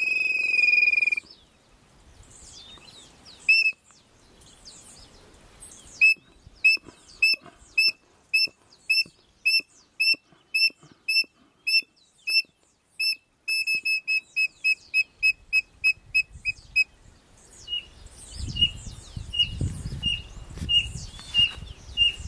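A held high whistle, then long runs of short high whistled notes at about two a second, quickening for a few seconds past the middle: a codorna-piriri calling to a flute-type bird-call pipe that imitates it. A low rumble comes in near the end.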